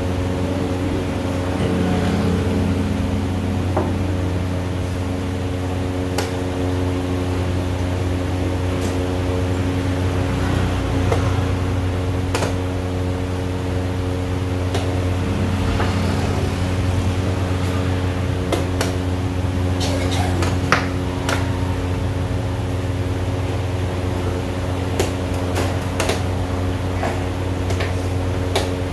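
Steady machine hum made of several fixed tones, with scattered sharp clicks and taps of chess pieces being set down on boards and chess clock buttons being pressed, a quick run of clicks about two-thirds of the way in.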